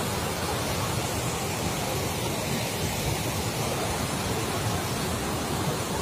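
River water rushing over rock ledges in white-water cascades at Duduma waterfall, a steady, unbroken rush.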